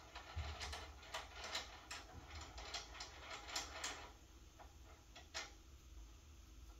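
Irregular clicks and light knocks of hardware being handled and fitted on an electronic drum kit, several a second for about four seconds, then only a few scattered clicks.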